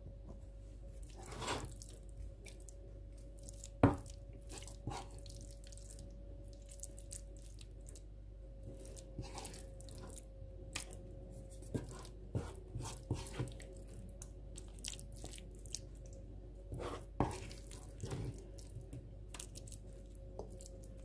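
China plates being handled and mashed fava beans (ful medames) spooned onto a porcelain plate: scattered clinks, knocks and soft wet scraping, with one sharp knock about four seconds in. A faint steady hum runs underneath.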